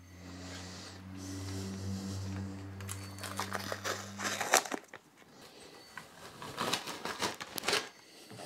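Green masking tape wrapped over an aluminium cylinder head's ports crinkling and crackling as the head is gripped and turned. A low steady hum runs under the first half and stops about halfway through.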